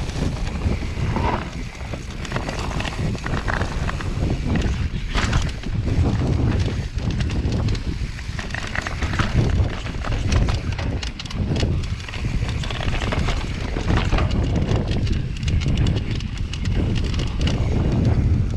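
Mountain bike rolling down a rough dirt and grass trail: a steady rumble of wind buffeting the microphone and tyres on the ground, with frequent clatter and knocks from the bike jolting over rocks and bumps.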